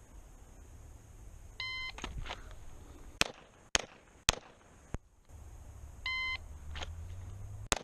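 Shot-timer start beep, then four 9mm pistol shots from a Springfield XDm 5.25 in quick succession, about half a second apart, fired one-handed. A second timer beep follows, and the first shot of the next string comes near the end.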